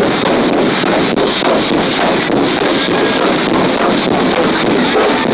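A car doing a burnout: engine held at high revs and rear tyres spinning against the tarmac, a loud continuous noise without a break.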